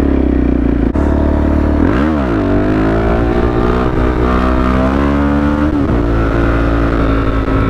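Supermoto motorcycle engine running under way. About two seconds in the revs dip and jump in a quick blip, then the pitch climbs slowly as it accelerates and drops back near six seconds.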